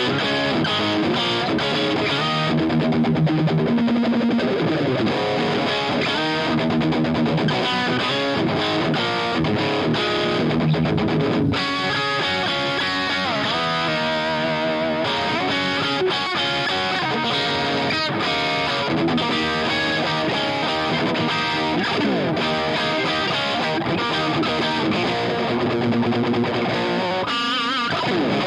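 Electric guitar played through an Omega Series Micro amplifier. The amp's speaker output is recorded direct, with a Greenback cabinet impulse and reverb added. Notes and chords are played continuously at an even level.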